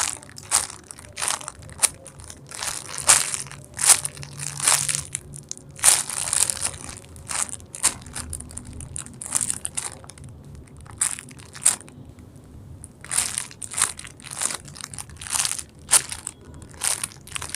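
Repeated crinkling, rustling bursts, one every half second to a second, from a foam squishy toy being handled and squeezed close to the microphone.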